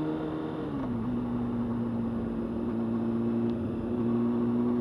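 Honda CBR600F4i's inline-four engine running under way, its pitch dropping slightly about a second in and then holding steady, with wind rushing over the mic.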